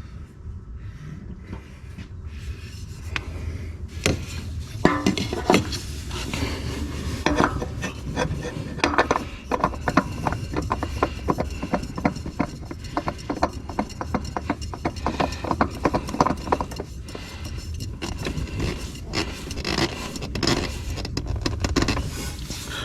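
A new spin-on oil filter being screwed onto its mount by hand, giving a dense run of rubbing and scraping clicks as the metal canister turns against hand and fitting.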